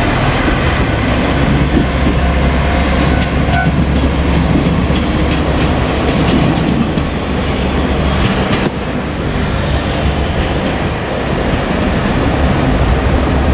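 JR Kyushu KiHa 47 diesel railcar pair running along the line: a steady diesel engine drone with the clickety-clack of wheels over rail joints. The sound changes abruptly about nine seconds in.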